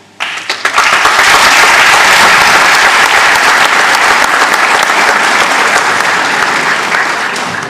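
Audience applauding, rising within the first second and tapering off slightly near the end.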